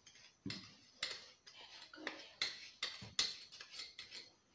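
Powdered sugar being tipped and shaken out of a small glass bowl into a mixing bowl: a series of irregular light knocks, clinks and scrapes of dish against dish.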